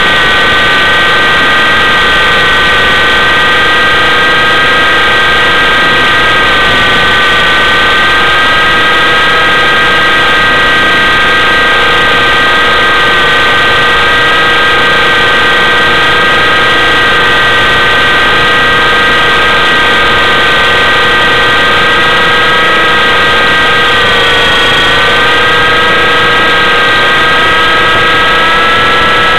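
Align T-Rex 600 RC helicopter in flight, heard from a camera mounted on the helicopter itself: a loud, steady high whine from its motor and rotor drive over a dense rushing noise. Twice the pitch sags slightly and recovers, the second time near the end.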